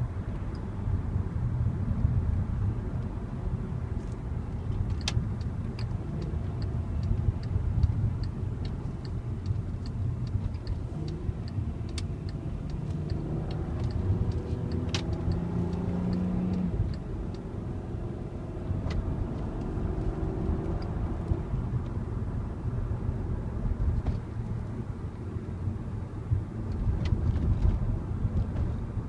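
Volkswagen Passat R36 being driven: its stock 3.6-litre VR6 engine runs under a steady low road rumble. About halfway through, the engine note climbs under acceleration, then cuts off suddenly as the throttle is lifted or a gear is changed. A quick, faint, regular ticking runs through the first third, with a few sharp clicks.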